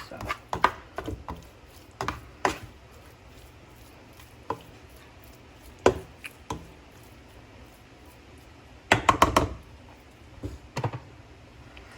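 A cooking utensil knocking against a pan while seasoned chicken pieces are stirred: scattered sharp knocks, with a quick run of them about nine seconds in.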